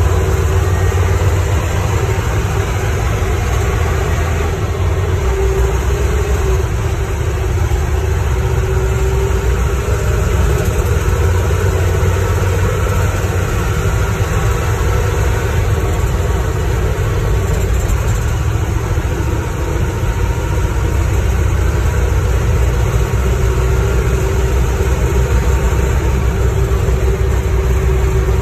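Old fire truck driving steadily, its engine running, heard from inside the cab.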